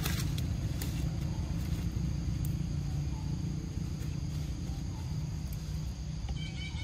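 Outdoor forest ambience: a steady low rumble on the microphone with a faint steady high insect hum and a few soft clicks. A short, evenly repeated high chirping starts near the end.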